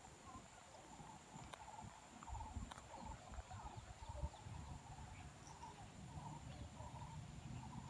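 Faint rural ambience of insects calling: a steady high whine with repeated short chirring calls, over a low uneven rumble of handling on the phone's microphone.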